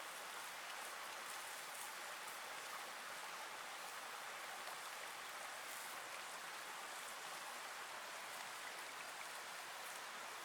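Steak frying with garlic, sizzling in a steady, even hiss.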